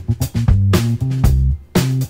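Upbeat instrumental background music with a bass line and a steady beat.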